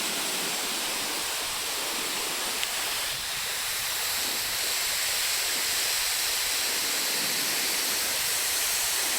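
Dangyo Falls' male fall (Odaki) pouring down, a steady, hissing rush of falling water.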